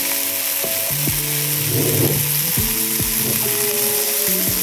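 Pieces of fish sizzling steadily as they fry in a frying pan, over background music.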